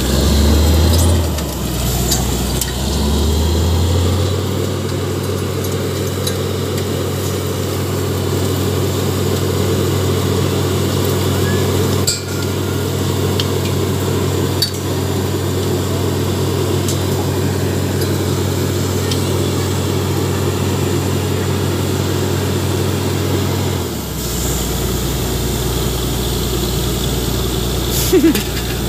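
Truck-mounted borewell drilling rig running steadily while drilling, its engine and compressed-air blast driving cuttings and water out of the bore. The engine note settles about four seconds in and shifts near the end, with a few sharp clicks and knocks along the way.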